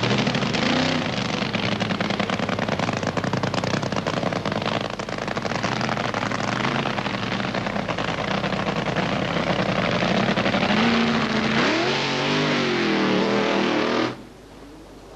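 Drag-racing funny car engine running loud and rough, revving with rising pitch near the end, then cutting off abruptly about fourteen seconds in.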